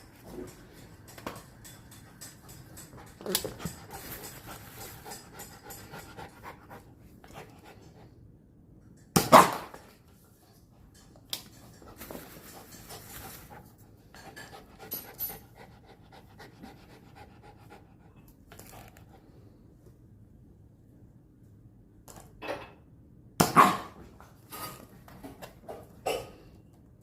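A dog panting, with two loud sudden sounds, one about nine seconds in and one near the end.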